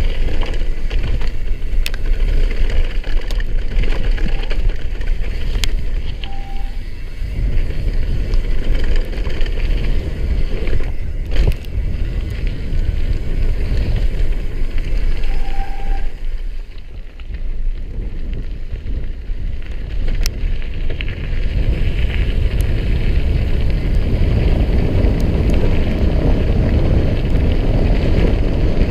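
A downhill mountain bike rolling fast over gravel: a steady rumble of tyres and wind, with occasional sharp clicks and knocks from the bike. Two short squeaks come partway through.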